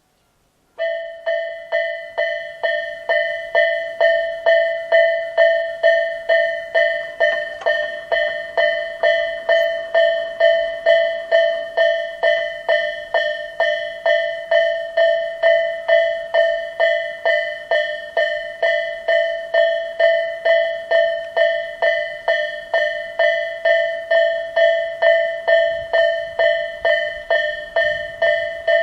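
Tobu Isesaki Line level-crossing warning alarm, the Tobu 'Isesaki-type' electronic bell, starting suddenly about a second in and striking about twice a second, each ring fading before the next. It signals that a train is approaching the crossing.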